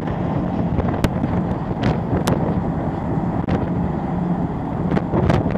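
Wind buffeting the microphone on a ferry's open deck, over the ship's steady low hum, with a few sharp clicks.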